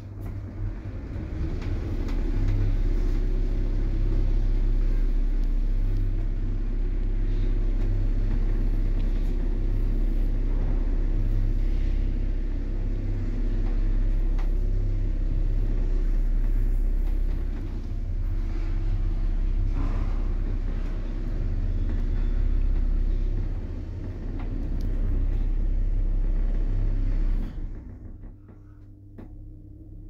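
A 1992-built apartment-block lift travelling between floors: a steady low hum and rumble from the moving car. It builds up over the first couple of seconds and stops fairly abruptly near the end as the car arrives.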